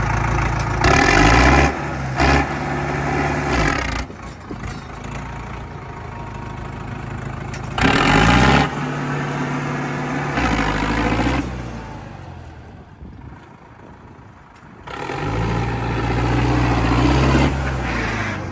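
Preet 6049 tractor's diesel engine revved in several bursts, rising and falling in pitch, with quieter stretches in between where it drops back toward idle.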